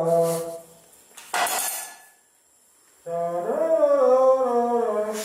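Exhaust muffler blown into like a horn, giving a low honking note that fades out about half a second in. A short rush of air follows, then a pause. A second honk starts about three seconds in, rises in pitch and holds steady.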